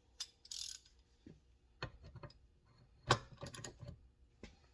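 Metal clicks and clanks of a large socket and wrench working a stuck fitting on a 1956 Pontiac brake master cylinder, with a sharp clank about three seconds in followed by a quick run of clicks.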